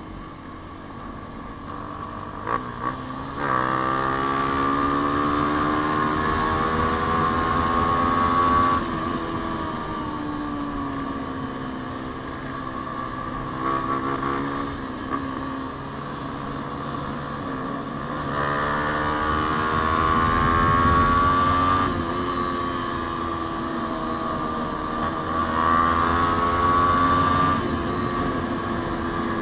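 Yamaha Sniper 150's single-cylinder four-stroke engine through an aftermarket JVT exhaust pipe, ridden under throttle. Its pitch climbs steadily three times, and each time it drops off suddenly as the throttle closes or the bike shifts.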